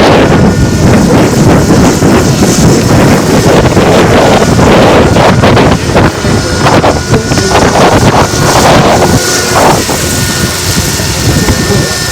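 Heavy wind buffeting the microphone, loud and gusting. About halfway through, the faint steady whine of a model helicopter starts to show beneath it.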